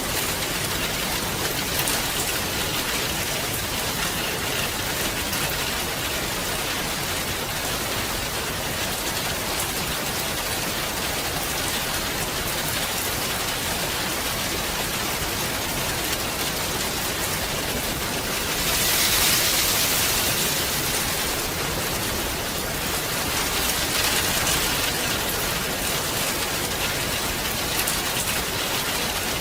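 Steady rain falling on a surface, an even hiss that swells briefly heavier about two-thirds of the way through.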